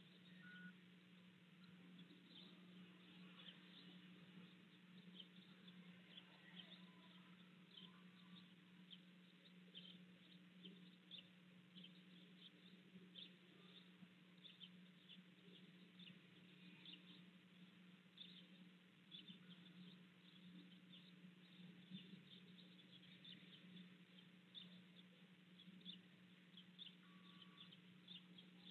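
Near silence on an air traffic control radio feed between transmissions: a faint steady low hum, with many faint short ticks scattered throughout.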